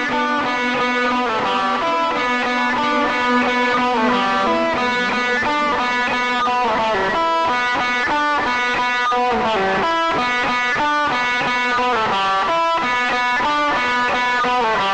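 Electric guitar music, a steady run of plucked notes played through effects, with no low bass part.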